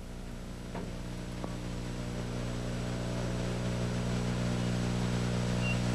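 Front-end loader's engine running at a steady speed, a constant hum that slowly grows louder.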